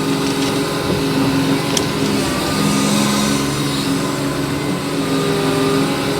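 Engine of a piece of heavy equipment running steadily at a constant speed.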